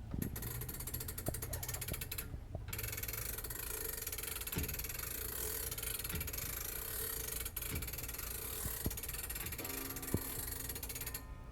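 The chime-train winding ratchet of a c.1911 Winterhalder nine-tube grandfather clock, wound by hand: a rapid, steady clicking as the pawl rides over the ratchet teeth while the heavy chime weight is drawn up, with a short pause about two and a half seconds in.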